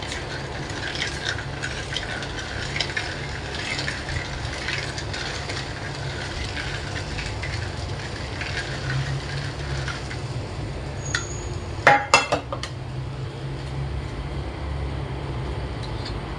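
A silicone ladle stirring rock sugar through boiling water in a clay pot, with small scrapes and clicks over a steady bubbling hiss and low hum. A few sharp clinks come about twelve seconds in.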